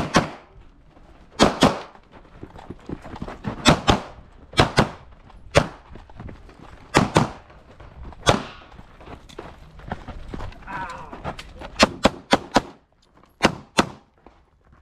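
Pistol shots from a Glock 45 9mm, fired mostly in quick pairs with pauses of a second or more between strings, and a fast run of shots about twelve seconds in.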